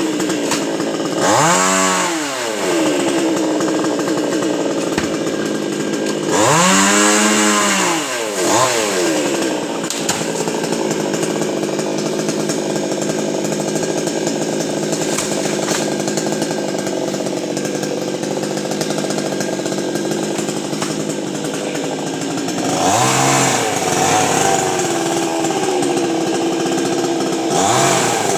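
Chainsaw running while cutting a coconut palm. The engine revs up and falls back twice early on, runs steadily at a lower pitch for about fifteen seconds, then revs up and down twice more near the end.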